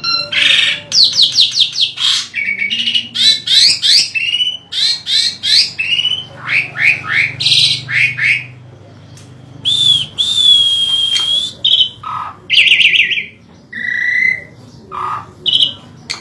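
Asian pied starling (jalak suren) singing a fast, varied song of quick sweeping whistles, rapid trills and harsh squawks, with a brief pause and then one long held whistle about ten seconds in. The song is one the owner calls strange and unusual for its species.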